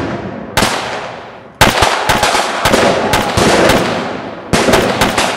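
Fireworks and firecrackers going off: a bang about half a second in, then from about a second and a half a rapid run of loud bangs, several a second, each trailing off in a fading hiss.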